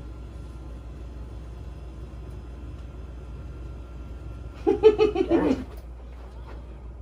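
Electric standing desk's lift motor running with a faint steady hum as the desktop rises, stopping about four seconds in. Just after, a short loud burst of laughter.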